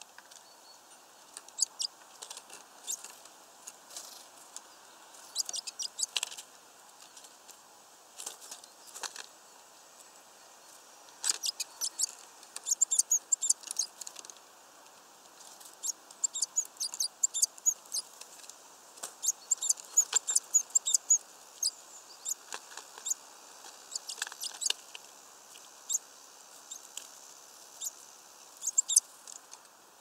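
Great tits pecking at peanuts through a mesh net feeder: runs of rapid, sharp taps and scratchy scrabbling, busiest in the middle stretch, with quieter gaps between runs.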